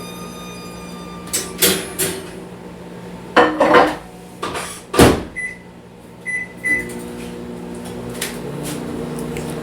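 Microwave oven being loaded and started: knocks and clatter of the door and the dish, the loudest about five seconds in, then three short keypad beeps. The oven then starts running with a steady hum.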